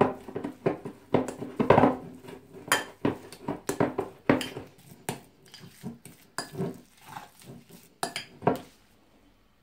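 Metal fork stirring and mashing tuna and soft spread in a glass bowl, clinking and scraping against the glass in irregular strokes. The strokes stop shortly before the end.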